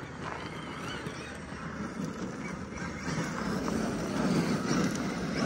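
1/10-scale electric RC monster truck driving on loose gravel: a steady gritty noise of tyres churning and throwing gravel, which grows louder past the middle as the truck slides through a dusty turn.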